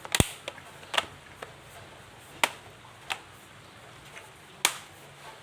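A handful of sharp clicks and taps at irregular intervals, five loud ones and a few fainter ones, from laptop parts being handled.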